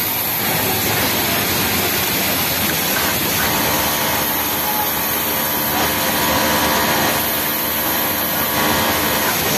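Industrial flatlock sewing machine stitching a T-shirt hem at high speed. Its steady whine starts about three and a half seconds in and stops just before the end, over a constant din of other sewing machines.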